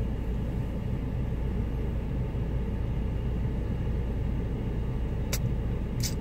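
Car engine idling during a cold-weather warm-up, heard from inside the cabin as a steady low rumble. Two short ticks come near the end.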